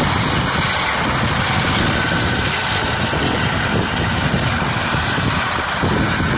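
Coast Guard MH-65 Dolphin helicopter hovering low. Its turbine engines and rotor run loud and steady.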